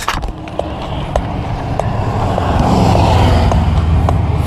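A motor vehicle passing on the road close by, its sound swelling to the loudest point about three seconds in and then easing off.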